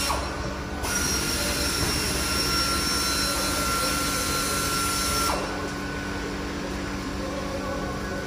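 Steady mechanical whir with thin, high whining tones. It dips briefly just after the start and eases down about five seconds in.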